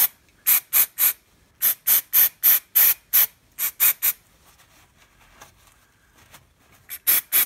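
Aerosol cleaner sprayed in short, rapid bursts into a freshly tapped bolt hole in a steel hub, about a dozen quick hisses in the first four seconds and three more near the end, blasting cutting residue out of the thread.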